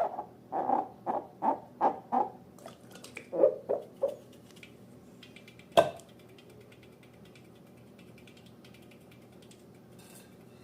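Rubber balloon squeaking as it is squeezed and rubbed: about nine short squeaks in the first four seconds, then a single sharp click about six seconds in.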